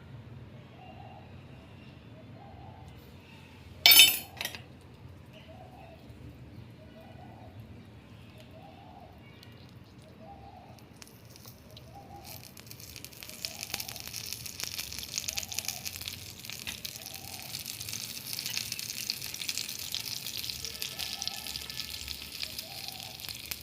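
Hot fat sizzling with a steady hiss that starts about halfway through and carries on: ghee frying in a red-hot clay diya. A short loud clatter about four seconds in.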